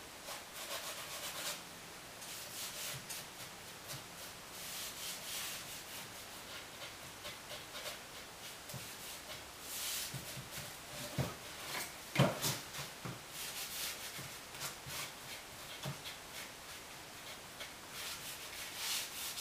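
A damp sponge rubbing and scrubbing acrylic paint onto a gesso-textured canvas in uneven strokes, with a couple of soft knocks about halfway through.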